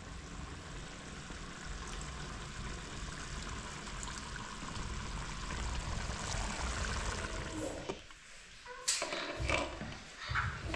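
Pot of meat stew simmering on a wood-burning stove, a steady bubbling hiss. It stops suddenly about eight seconds in, followed by a few sharp knocks.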